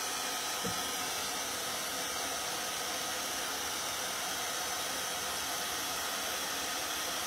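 Handheld hair dryer running steadily, blowing on freshly painted navy blue to make it dry faster.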